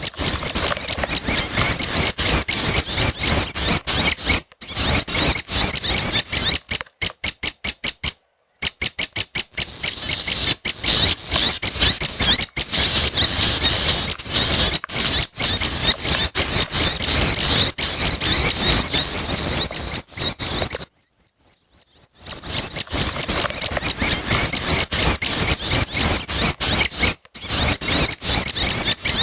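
Juvenile prenjak chicks calling in a loud, dense, high-pitched chatter. It is broken by brief pauses about 8 s in and again around 21 s, and by runs of rapid, evenly spaced ticking notes.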